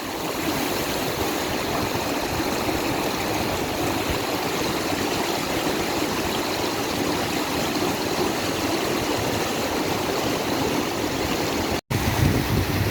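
River water flowing as a steady rushing noise. It cuts out for an instant near the end and comes back heavier in the low end.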